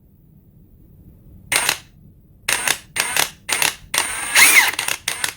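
Ridgid High Torque cordless impact wrench motor spinning freely in five short trigger pulls, the last longer, rising and then falling in pitch. The speed jumps up and drops off instead of following the trigger smoothly, which the reviewer calls a choppy, not very progressive trigger.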